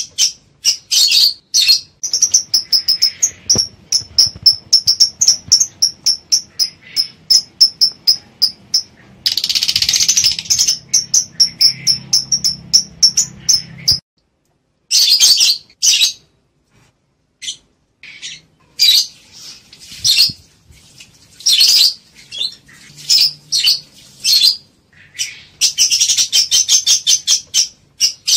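Lovebirds in breeding condition calling: runs of shrill, high chirps, about three a second, broken by dense bursts of chattering. The calls stop for about a second halfway through, then come back in scattered bursts.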